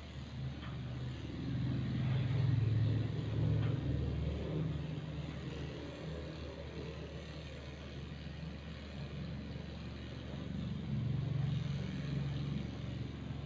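Corded electric dog clipper running steadily as it shaves through a matted coat. Its low hum grows louder twice, for a couple of seconds near the start and again near the end.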